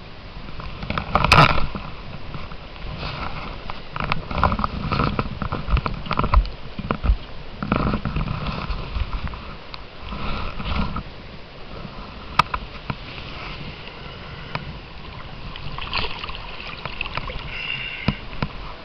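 River water splashing and sloshing in irregular bursts, as from wading or handling in shallow water, with a sharp click about twelve seconds in.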